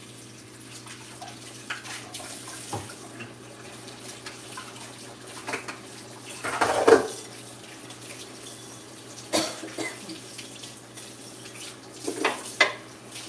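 Kitchen sounds of water running and pots and a lid clattering, with a handful of sharp knocks and the loudest clatter about seven seconds in, over a steady faint hum.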